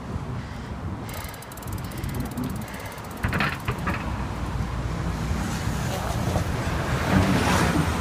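Rapid, even clicking of a bicycle freewheel as the rider coasts, about a second in. After that comes wind rushing over the microphone and car traffic passing alongside, growing louder toward the end.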